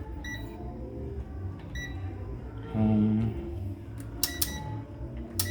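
Short electronic beeps from a digital multimeter, several times, as its selector is switched and set to the capacitance range, with a brief low hum about halfway through.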